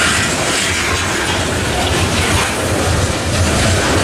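Coal train's open-top hopper cars rolling past at close range: steady, loud noise of steel wheels on the rails.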